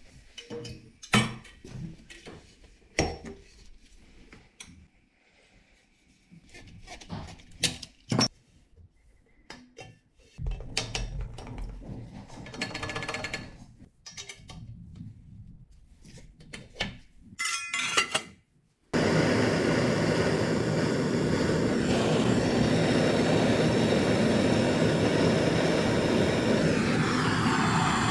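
Copper pipe and fittings being handled, with scattered clinks, taps and knocks of metal on metal. About two-thirds of the way through, a loud, steady roar starts suddenly and keeps going: a soldering blowtorch burning on the copper gas pipe.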